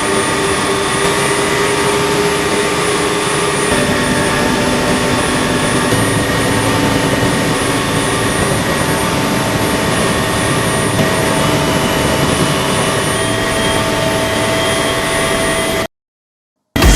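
Helicopter turbine engine and rotor running steadily, a dense noise with a high whine. It cuts off abruptly about 16 seconds in.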